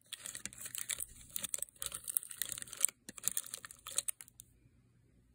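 Plastic candy wrappers crinkling and rustling in quick bursts as Airheads bars are pushed into a plastic container, stopping about four and a half seconds in.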